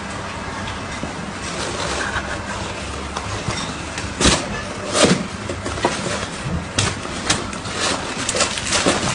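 Cats playing in a cardboard box: several sharp knocks of paws and bodies against the cardboard over a steady background hiss.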